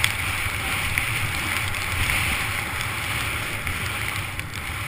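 Steady rush of wind buffeting a helmet camera's microphone during a fast run down deep powder, with the hiss of skis cutting through the snow.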